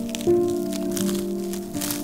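Slow instrumental music with held notes, a new note coming in about a quarter second in, over the scattered crackles and pops of a wood fire burning in a fireplace.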